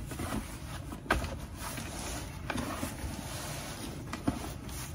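Cardboard rubbing and scraping as a boxed part is worked out of a shipping carton, with a few light knocks.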